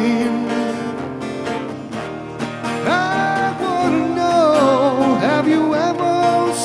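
Live acoustic music: acoustic guitar playing, with a lead melody line that slides and bends between notes.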